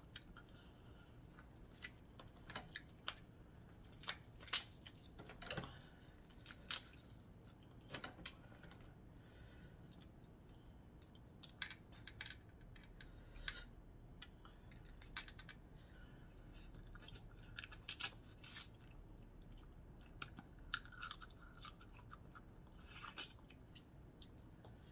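Quiet eating of crab legs: scattered small clicks and cracks from the shells being broken and picked, with chewing.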